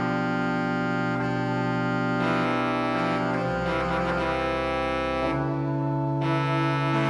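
Church pipe organ playing Baroque music in sustained chords, with a deep pedal note coming in about three and a half seconds in and dropping out about two seconds later.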